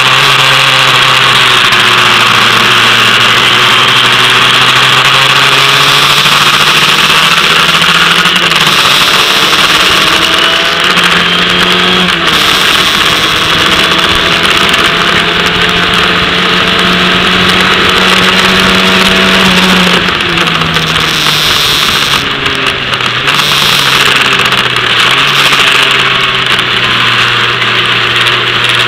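Formula Ford race car engine heard from on board at speed, its pitch climbing through each gear and dropping back at the gear changes several times, over a steady loud hiss of wind and tyre spray on the wet track.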